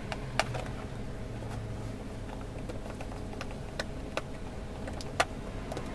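Light clicks and taps of wire ends and a plastic screw terminal block being handled, scattered and irregular, with the sharpest click about five seconds in. A steady low hum lies underneath.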